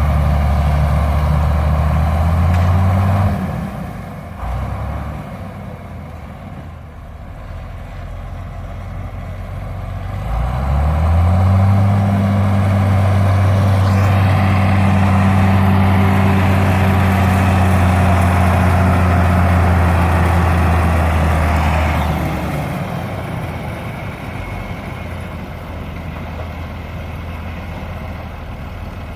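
Large engine running hard. It throttles down about three seconds in, revs back up about eleven seconds in, holds steady high revs under load, then eases off a little after twenty-two seconds.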